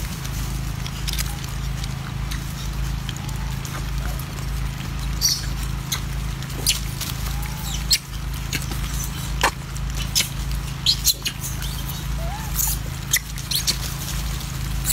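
Macaques feeding: scattered sharp clicks and rustles of fruit pieces being handled on stone, with a few short, squeaky arched calls, over a steady low rumble.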